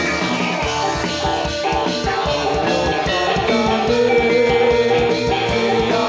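Live jathilan accompaniment music played through a PA system: a fast, steady drum beat under held melodic notes from the ensemble.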